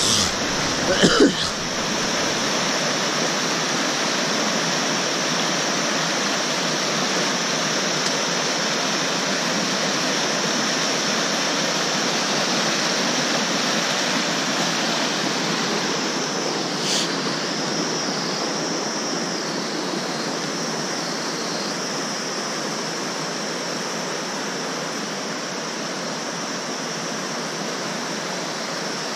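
Mountain river rapids rushing over boulders: a steady, loud wash of water. A short vocal sound, like a cough, stands out about a second in.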